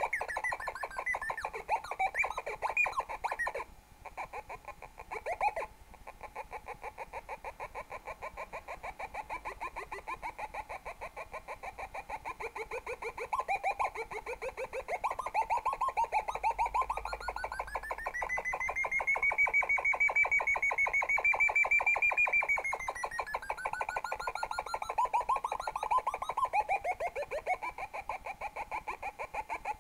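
Arduino-driven loudspeaker playing a rapidly stuttering, buzzy electronic tone whose pitch wanders and slides as a flashlight's light on the circuit changes. It cuts out briefly about four seconds in. Around the middle it glides up to a high whine, holds there for several seconds, then slides back down.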